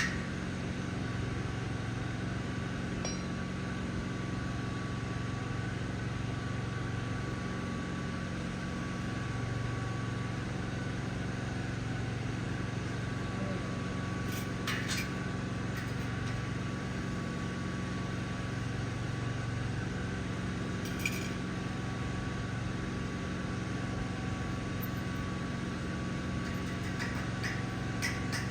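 A steady machine hum with a few brief light metallic clinks, and a quick run of ticks near the end.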